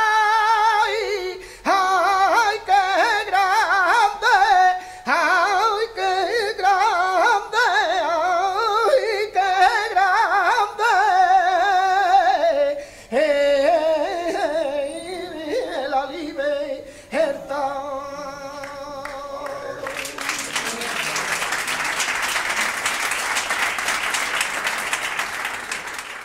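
Male flamenco singer singing a tonás, a long wavering, heavily ornamented vocal line broken by short breaths and ending on a held note; about twenty seconds in, audience applause breaks out and continues.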